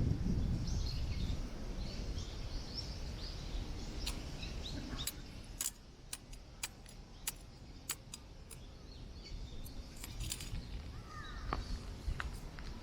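Wind buffeting the microphone as a low rumble, easing after the first couple of seconds, with small birds chirping now and then. A scattering of sharp little clicks comes in the middle.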